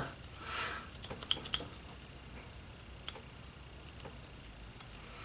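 A few light, sharp clicks and ticks of small hand tools being handled and set down, several close together about a second in, then single ones spread apart.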